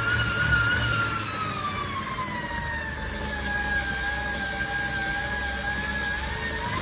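Tacx Flow turbo trainer running with an abnormal grinding whine over a low rumble. The whine drops in pitch about a second in as the wheel slows, holds steady, then climbs again near the end as it speeds up.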